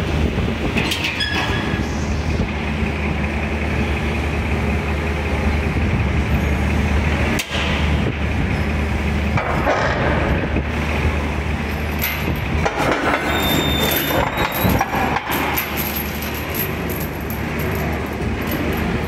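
Steady low machine drone, continuous and loud, with scattered clicks and rattles over it.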